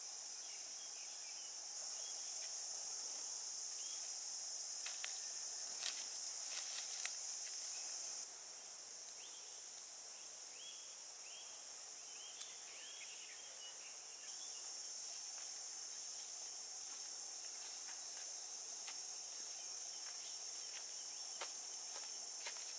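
Steady high-pitched chirring of insects such as crickets, with a few sharp clicks around six to seven seconds in and faint bird chirps a little later.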